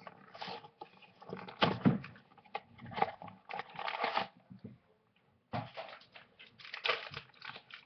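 A Vinylmation blind box being opened by hand: packaging rustling and crinkling in a run of quick, sharp crackles. The crinkling stops for about a second a little past the middle, then starts again.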